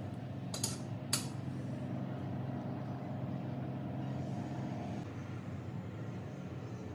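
A steady low hum, with two sharp clinks about half a second apart around a second in.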